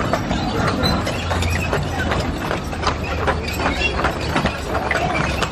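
Hooves of a four-horse stagecoach team clip-clopping on pavement, a few sharp knocks a second, over the low steady rumble of the coach rolling.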